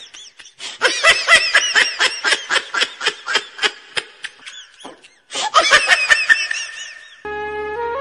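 High-pitched laughter in quick repeated pulses, in two bouts with a short break between them. Flute music comes in near the end.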